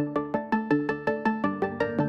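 Instrumental background music: a steady run of quick single notes, about five or six a second, each dying away, changing chord near the end.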